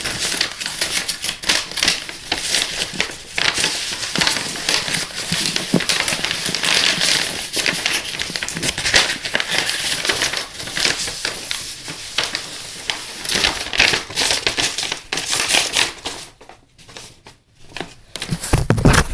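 A sheet of paper being handled, folded and creased by hand, with continuous crinkling and quick crackles from the paper. It drops almost quiet for a couple of seconds near the end.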